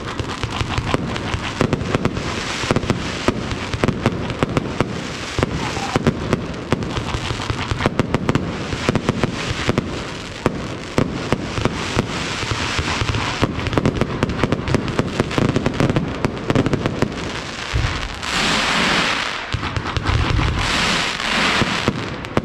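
Aerial fireworks display: a dense, continuous run of sharp cracks and bangs. In the last few seconds a thick hissing crackle comes in with a few deep booms.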